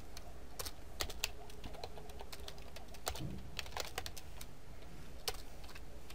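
Computer keyboard being typed on: irregular short runs of key clicks with small pauses between them.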